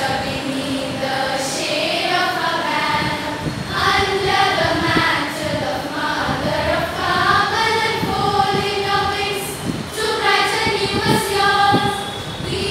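A girls' school choir singing their school anthem, with several long held notes.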